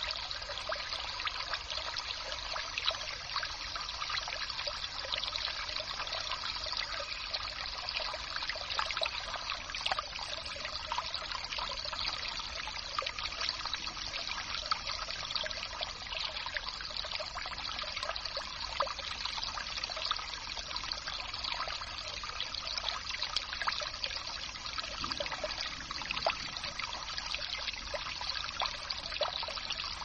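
Water trickling steadily, a stream still flowing beneath the snow and ice.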